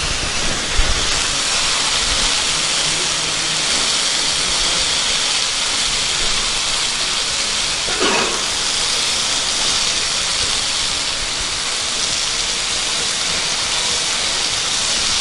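Oiled, spice-marinated satay skewers sizzling steadily on a hot grill pan.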